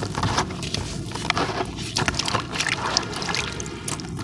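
Crumbled bits of a dry sand-cement chunk falling into a tub of water as a hand rubs them off and stirs the water: a dense, irregular run of small crackles and splashes.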